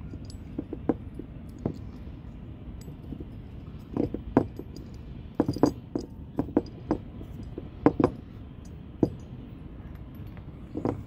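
Light metallic clicks and clinks at irregular intervals as the bolts in a stanchion base plate are handled, metal tapping on metal, over a steady low background hiss.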